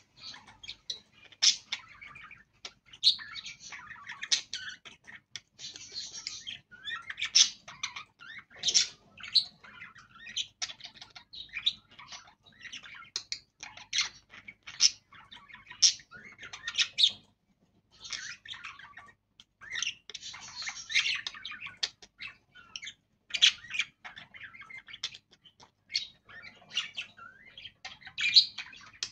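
Pair of budgerigars chattering: a fast, continuous run of short chirps and warbles, with a pause of about a second past the middle.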